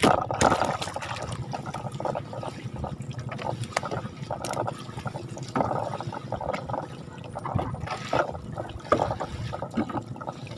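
Lake water splashing and trickling in irregular bursts as a fine-mesh fishing net is hauled up out of the water over the side of a small wooden boat, with a louder splash at the very start.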